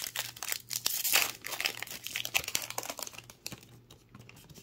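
Crinkly wrapper of a Panini Elite basketball card pack being handled and torn open by hand. Dense crackling, loudest in the first second and a half, then softer and sparser.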